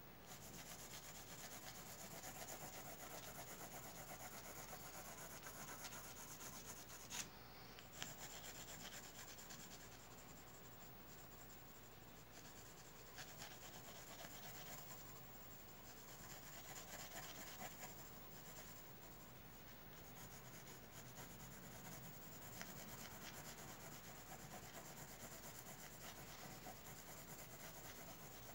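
Graphite pencil shading on drawing paper: a faint, steady scratchy rubbing of the lead across the sheet. Two light ticks come about seven and eight seconds in.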